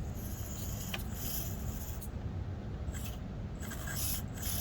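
SCX24 micro RC crawler's tires and chassis scraping against the terrain in a series of short rasps while the truck is stuck on an obstacle.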